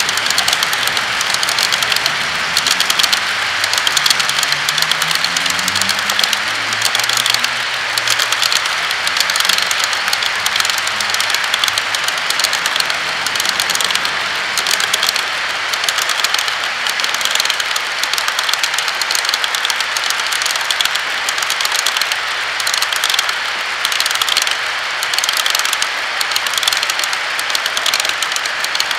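Long HO-scale model freight train of boxcars rolling past on the track: a steady, dense rumble and rapid clicking of the cars' wheels over the rails.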